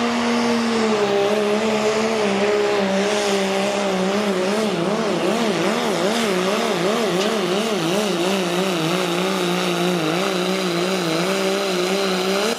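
Diesel pickup truck at full throttle under heavy load, pulling a weight-transfer sled, its engine note dipping slightly about a second in and then warbling rapidly up and down for several seconds before steadying.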